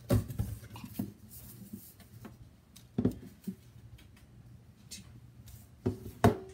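A metal gift tin and its lid being handled: a few sharp clicks and knocks, the strongest right at the start, about three seconds in, and near the end.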